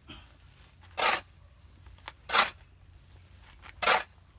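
Metal shovel scooping and tossing crumbly composted chicken manure while the pile is being turned and mixed: three short gritty scoops about a second and a half apart.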